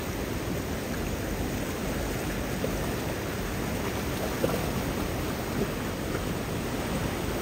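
Floodwater flowing hard through a breached spillway weir: a steady, even rush of fast-moving water.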